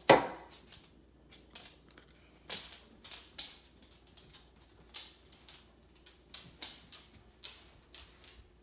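Scattered irregular clicks and taps of dogs' claws on a hard floor, with one loud knock right at the start.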